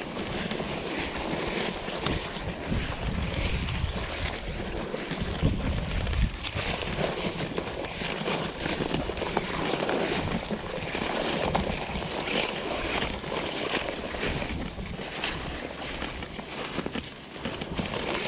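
Dry weeds and brush rustling and swishing against a person's legs as they push through dense cover on foot. Wind rumbles on the microphone, strongest in the first several seconds.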